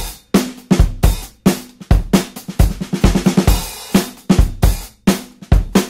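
Background music led by a drum kit (kick, snare, hi-hat and cymbal) playing a steady beat.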